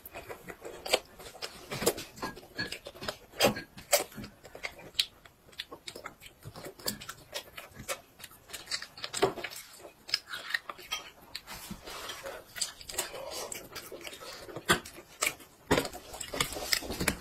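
A small child eating: irregular clicks and taps of plastic training chopsticks against a stainless-steel divided bowl, with chewing and mouth sounds.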